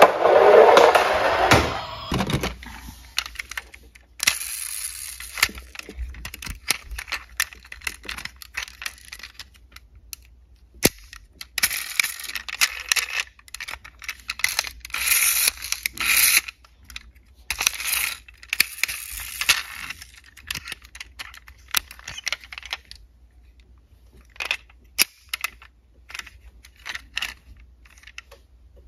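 A toy car's wheels rolling on a board, loud at first and dying away within about two seconds. Then small diecast toy cars click and clatter against one another as hands rummage through a cardboard box of them, with rustling of the box.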